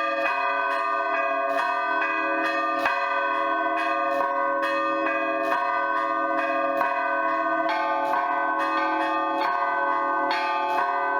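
Russian Orthodox-style church bell ringing (zvon) on eight old bells, several of them damaged: a large main bell, four middle bells and three small chiming bells. The bells are struck quickly in a dense, continuous pattern, their tones overlapping and ringing on.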